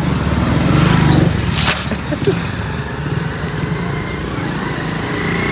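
Small motorcycle engine running with a steady low putter, loudest about a second in.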